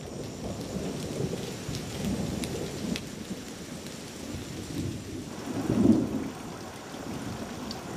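Rain falling on water, with a low rumbling that swells to its loudest about six seconds in.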